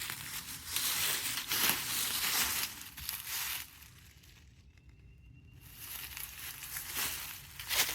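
Footsteps crunching through dry leaves and brush, in irregular bursts that stop for about two seconds midway and then resume.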